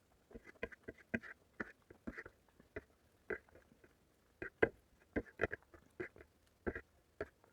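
Close-miked wet chewing and lip-smacking of a mouthful of curry and rice, in irregular short smacks, a few each second.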